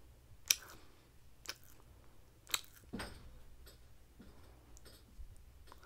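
Close-up chewing of grilled kabob meat: wet mouth clicks and smacks roughly once a second, the sharpest about half a second in, over faint room hum.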